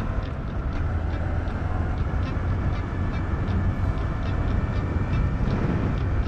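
Honda Monkey's 125 cc single-cylinder engine running at a steady cruising speed, with rushing noise over it. A light clicking repeats about twice a second; the rider puts the bike's noise down to a drive chain that is far too loose.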